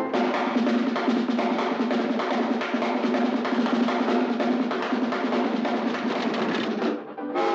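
Busy music with drums and percussion. It breaks off near the end, where a held tone with several pitches at once begins.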